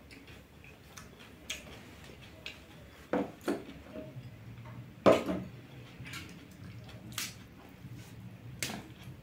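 Tableware clatter during a meal: a glass bowl and a metal fork clinking and scraping against a steel plate as stew is poured over noodles. It comes as a series of separate short knocks, the loudest about five seconds in.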